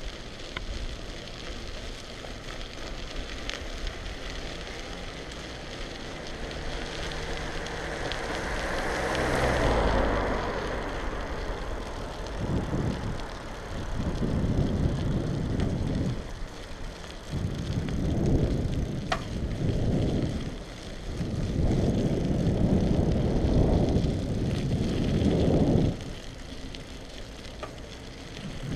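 Bicycle riding on wet pavement: tyre hiss and rattle with wind on the GoPro microphone, swelling louder about ten seconds in, then heavy low wind rumble in uneven gusts through most of the second half.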